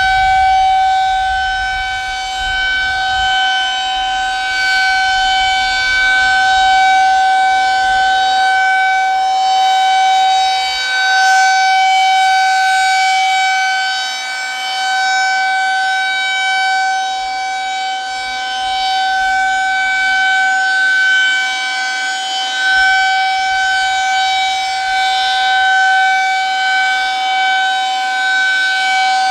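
Federal Signal 2001-SRNB rotating outdoor warning siren sounding a steady alert tone at one fixed pitch during its monthly test. Its loudness swells and dips gently as the rotating head sweeps past.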